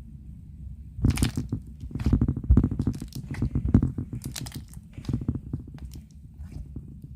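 Slime being squished and pressed by hand, giving wet crackling pops and clicks that start about a second in and come in bursts.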